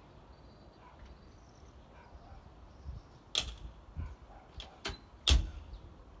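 A few sharp clicks and knocks, the last and loudest a heavy thump about five seconds in: the cab door and latch of a Yanmar B7 mini excavator being shut.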